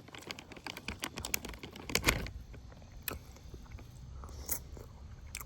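Close-miked eating sounds: a quick run of small, crisp clicks and smacks for about the first two seconds, then a few scattered clicks.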